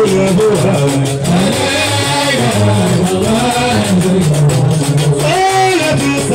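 Live Gnawa music: a guembri's deep plucked bass line under iron qraqeb castanets clacking in a steady rhythm, with male singing over them.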